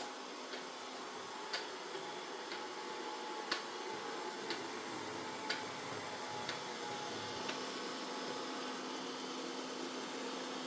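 Mova Z60 robot vacuum running with a steady hum, with a light click about once a second that fades out past the middle.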